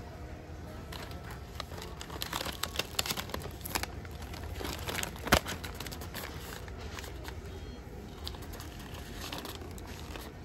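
Crinkling and crackling handling noise with scattered clicks, the sharpest click about five seconds in, over a low steady background.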